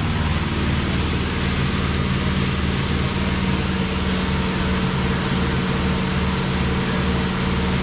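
An engine idling steadily: a low, even hum with a pulsing low throb underneath.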